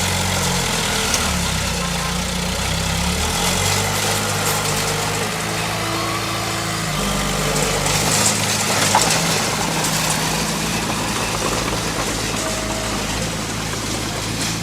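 Diesel engine of heavy earth-moving machinery running, its low tone shifting in pitch as the engine speed changes, over a constant rattling hiss.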